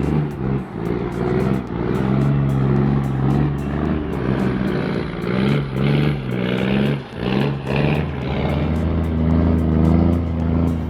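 Heavy diesel engine running under load, its pitch stepping up and down several times as the revs change.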